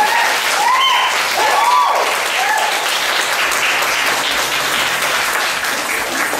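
Audience applauding steadily, with a few high whooping cheers over the clapping in the first two or three seconds.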